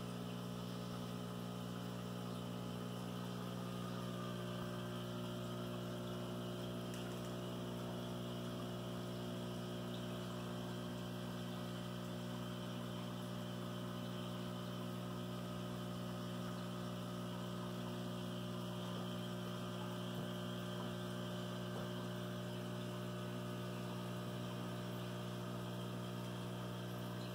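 Aquarium pump humming steadily at a low, even mains-frequency pitch.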